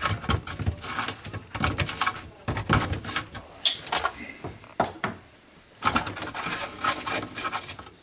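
Rapid clicking and rattling of hard plastic and metal: channel-lock pliers grip and work the centre nut of a dishwasher's lower spray arm while the arm is held. The clicks come in clusters, with a short lull about five seconds in.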